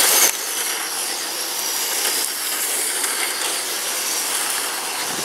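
1/10-scale electric radio-control oval trucks with 17.5-turn brushless motors running laps: a steady high whine and hiss, a little louder in the first moment.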